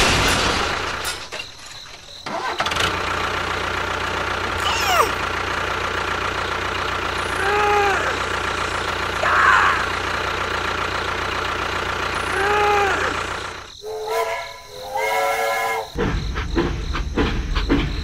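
A steady engine drone, dipping briefly about a second in and again near the end. Short arched, pitched cries sound over it several times, two of them identical.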